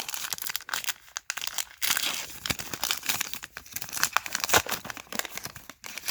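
Plastic wrapper of a trading-card hanger pack crinkling and tearing as it is opened by hand, with irregular crackles throughout.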